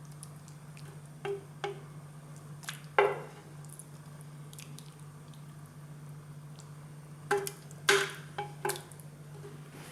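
Thick, oily caramelised onion sauce being spooned from a pot into a tagine: soft wet squelches and a handful of sharp spoon knocks and scrapes against the dish. A low steady hum runs underneath.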